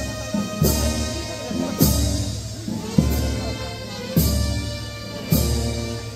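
Band playing a slow processional march: a heavy bass drum strikes about every 1.2 seconds, five beats, under held chords.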